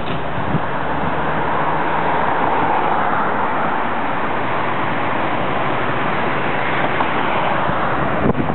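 Road traffic: cars driving past close by on a city street, a steady rush of tyre and engine noise that swells about two to three seconds in.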